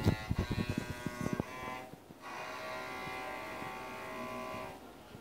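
A run of knocks and handling noise for about the first second and a half, then one long, steady bowed note on an electric cello that fades out near the end.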